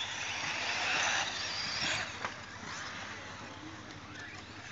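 Brushless electric RC cars racing on a dirt off-road track, their motors and tyres making a high rushing noise that weakens after about two seconds.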